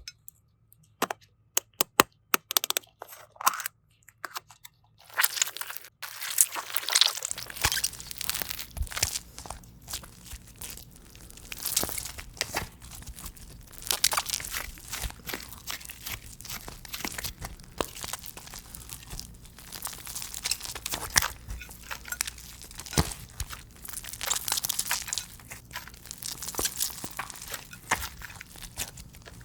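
Crunching and crackling of a crunchy slime-like material being squeezed and pressed. It starts as a few separate sharp clicks, then about five seconds in becomes a dense, continuous crackle.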